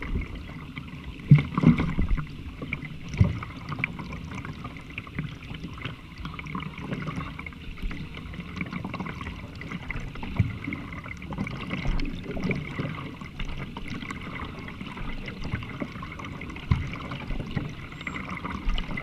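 Kayak paddling on open water: water splashing and trickling off the paddle as it dips and lifts, with a few dull knocks.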